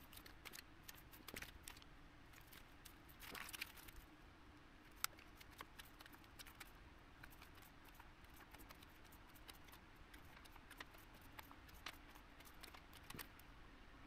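Faint clicks and crinkles of small electronic components being handled: a short crinkle of plastic component packaging a little over three seconds in, and light taps of tweezers on the bare circuit board, with one sharper click about five seconds in.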